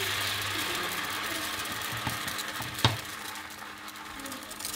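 Crêpe cooking in a frying pan on an induction hob: a steady low hum with a hiss that eases after the first second, and one sharp knock about three seconds in.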